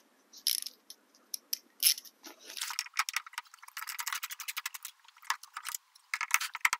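Quarter-inch socket ratchet clicking as it drives a Phillips bit, loosening a mud guard screw. There are a few scattered clicks, then a fast run of clicks for about two and a half seconds, and another short burst near the end.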